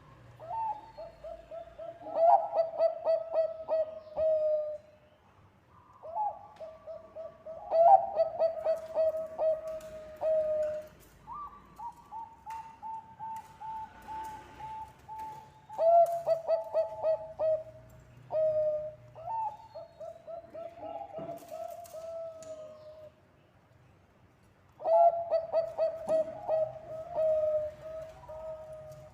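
Zebra dove (perkutut bangkok) singing repeated cooing phrases. Each phrase is a quick stuttering run of short coos that runs into a drawn-out, slightly falling note, about six phrases with short pauses between them.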